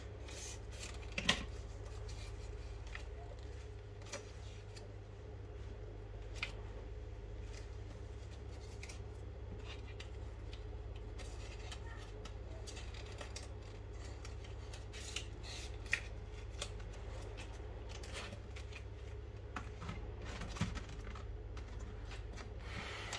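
Paper and thin cardboard being handled: a small paper sleeve slid open and its contents pulled out, making scattered light rustles and sharp little clicks over a steady low background hum.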